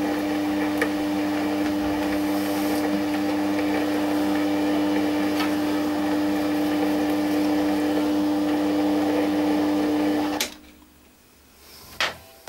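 Güde GMD 400 mini metal lathe running steadily with a constant whine, taking a thread-cutting pass; the motor shuts off about ten and a half seconds in, followed by a single sharp click.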